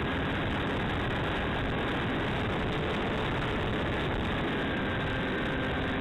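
Hawk Sky RC plane in flight heard from its onboard camera: a steady hiss of wind and airflow over the microphone, with a faint steady whine from the electric motor and propeller underneath.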